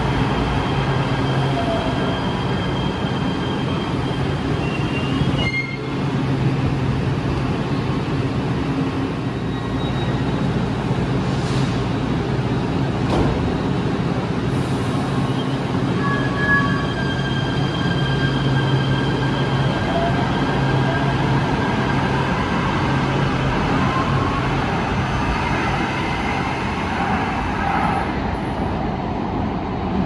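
LA Metro light rail train running through an underground station: a steady rumble and hum, with faint high tones above it.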